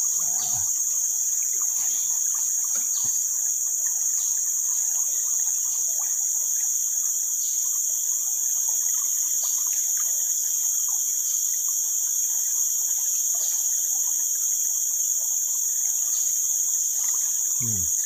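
Tropical forest insects droning: a steady, high-pitched buzzing chorus that holds unbroken throughout.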